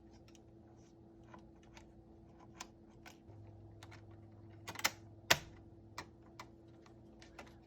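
Scattered light clicks and taps of small plastic and metal car-radio parts being handled and fitted together by hand. There is a quick cluster of clicks a little before five seconds in and a sharper, louder click just after, over a faint steady hum.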